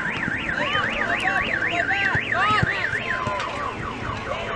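Car alarm sounding, its electronic tone sweeping rapidly up and down about three to four times a second, then switching to a faster repeating chirp about three seconds in as it cycles through its tones.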